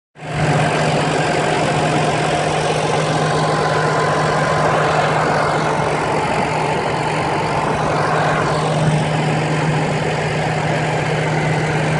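Heavy diesel engine of harvest machinery running steadily at a constant speed, a loud even drone that cuts in suddenly right at the start.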